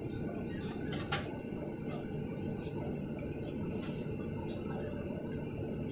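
Steady low rumble and hiss of a Boeing 737 MAX 8 cabin on the ground, with a few faint clicks, the clearest about a second in.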